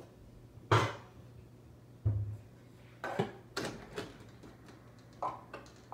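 Household objects handled and set down on a hard surface: a sharp knock less than a second in, a dull thud about two seconds in, then a run of lighter clunks and clicks.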